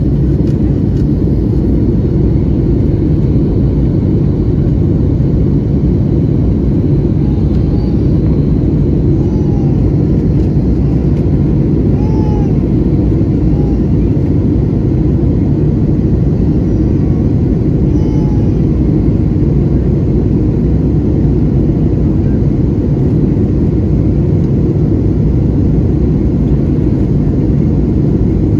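Steady, loud cabin drone of a jet airliner in flight after takeoff: engine noise and rushing airflow heard from inside the cabin, deep and unchanging.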